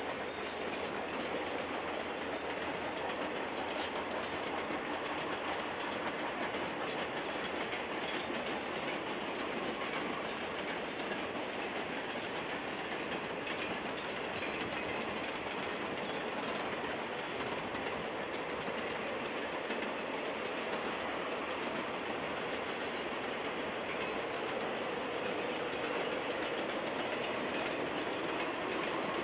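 Container train's freight cars rolling steadily past, with the continuous sound of steel wheels running on the rails.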